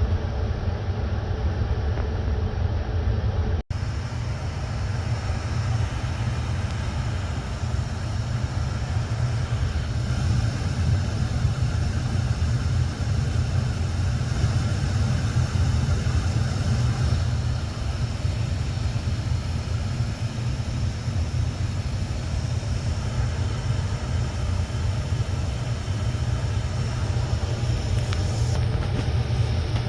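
Olsen Duomatic furnace running: a steady, loud low rumble with a hiss over it.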